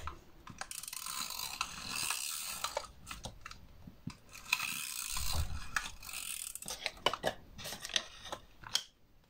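Paper and card being handled, folded and pressed together while double-sided tape is stuck down: irregular rustling and crinkling with small clicks and taps.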